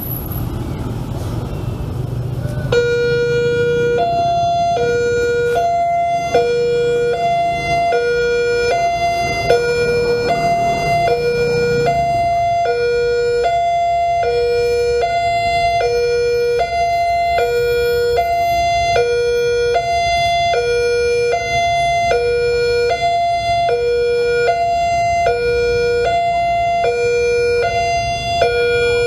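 Railway level-crossing warning alarm that starts about three seconds in: an electronic signal alternating between a low and a higher tone, a full cycle about every second and a half, the signal that a train is approaching. Road traffic rumbles underneath.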